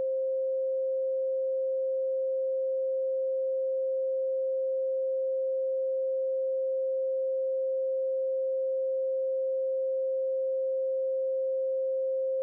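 A pure 528 Hz sine tone, held steady at one pitch and level.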